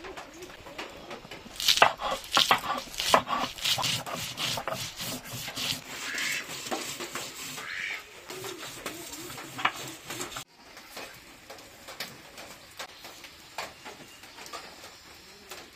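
Grinding block knocking and rubbing on a grooved grinding board, crushing green chillies into a paste. A run of sharp knocks starts about two seconds in, and after about ten seconds the strokes turn quieter and sparser. A pigeon coos faintly at the very start.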